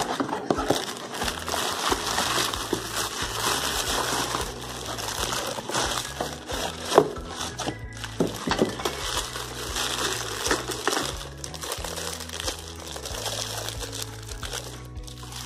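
Clear plastic wrapping crinkling and rustling as plastic-wrapped pickle jars and a metal stand are handled and unwrapped, with a sharper click about halfway through. Background music with a steady bass line plays underneath.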